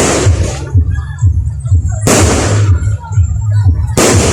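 Fireworks shells bursting, three loud blasts about two seconds apart, each trailing off briefly, over bass-heavy music.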